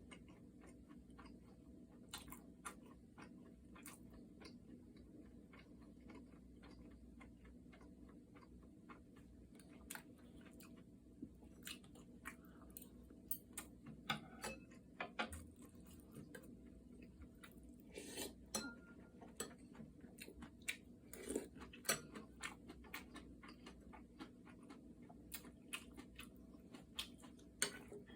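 A person chewing food close to the microphone, with scattered small crunches and mouth clicks.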